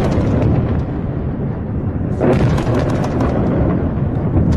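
Explosion on a ship struck by a missile: a loud, deep rumbling blast. A fresh blast comes in about two seconds in.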